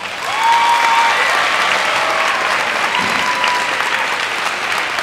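An audience applauding loudly, with a couple of long high calls from the crowd rising over the clapping.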